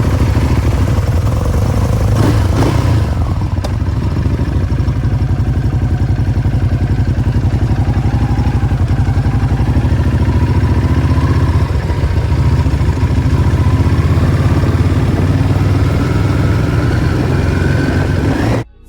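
Ducati Hypermotard's L-twin engine running under way, a loud, fast low pulsing, heard from a phone mounted on the bike. It cuts off abruptly just before the end.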